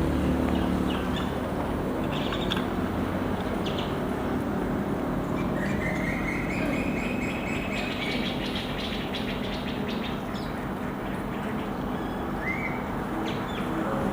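Steady rushing, humming noise throughout, with a bird chirping partway through and again briefly near the end.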